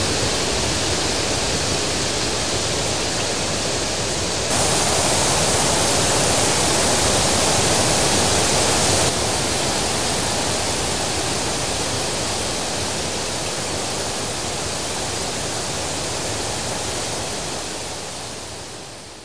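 Steady rushing of a large waterfall, stepping louder about four seconds in and softer about nine seconds in, then fading out near the end.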